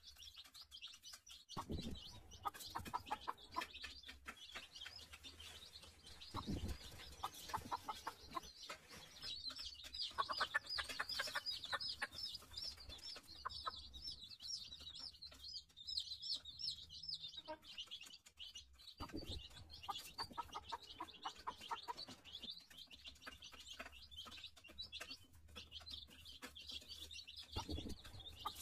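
Baby chicks peeping almost nonstop in high, rapid chirps, with an adult chicken clucking at times. A few dull thumps are heard, about two, seven, nineteen and twenty-eight seconds in.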